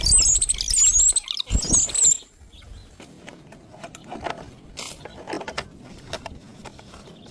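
Birds at a bird feeder: about two seconds of loud, high, wavering chirps with rustling and thumps, then quieter scattered clicks and taps.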